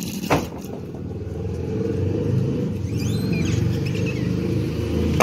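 Low rumble of wind and handling noise on a hand-held phone's microphone, growing louder about a second in, with a sharp knock near the start.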